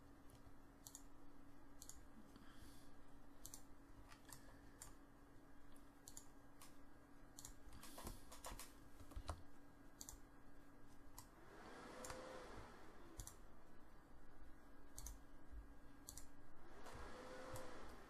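Faint, irregular computer mouse clicks, scattered singly and in quick pairs, over a steady low electrical hum.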